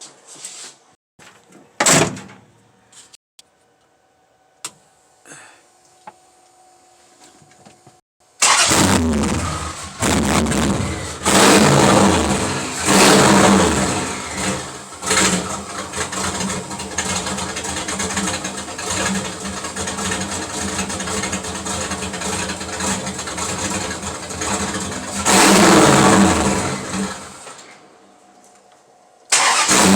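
A rat rod's turbocharged, carbureted engine, run for the first time with its new turbo. After a few clicks it fires about eight seconds in, runs loud and is revved up several times, and drops back low shortly before the end.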